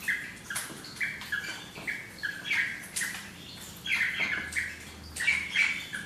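Rosella parrot calling in a quick series of short, sharp notes, roughly two a second, a little louder near the end.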